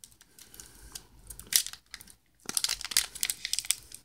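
Foil wrapper of a Pokémon trading card booster pack crinkling as it is gripped and pulled open by hand. Scattered crackles at first, a brief lull about two seconds in, then dense crackling.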